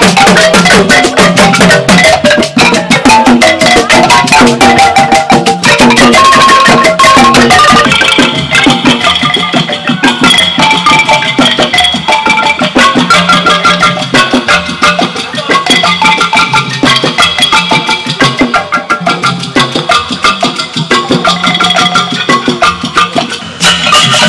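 Wooden xylophones struck with mallets, played with percussion in a fast, rhythmic dance tune. The sharp high clatter thins out about eight seconds in.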